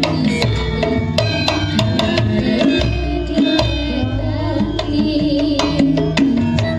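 A Javanese gamelan ensemble plays an instrumental passage of a campursari song in dangdut koplo style. Kendang hand-drum strokes drive a busy rhythm over the held tones of bronze kettle-gongs and metallophones.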